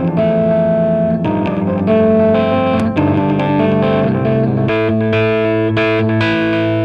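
Background music: a guitar instrumental with distorted electric guitar and bass, its chords changing about every second.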